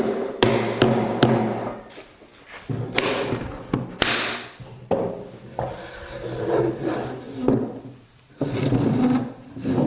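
Sharp wooden knocks and thuds, three in quick succession in the first second and then a few more about a second apart, with rubbing and scraping between them: the dowelled rails and legs of a wooden stool frame being knocked together in a dry fit.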